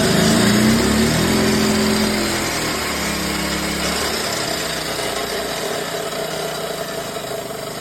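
Chop saw running off an ERAYAK 2400W inverter generator in eco mode, with the generator's engine rising in pitch from idle as it takes the saw's load. After about two and a half seconds the pitch drops and the sound slowly fades as the saw winds down.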